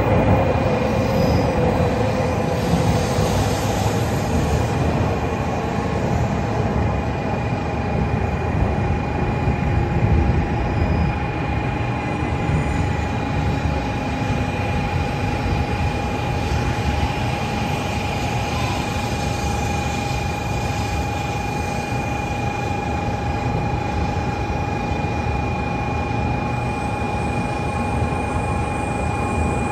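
Shinkansen train running at speed, heard from inside the car: a steady rumble with a faint, constant high whine over it.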